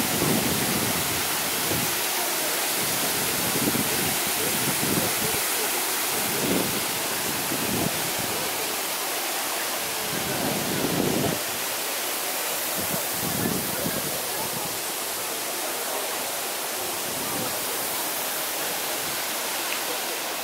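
Shifen Waterfall, a broad waterfall, pouring down in a steady, dense rush of water noise, with uneven low rumbles in the first half.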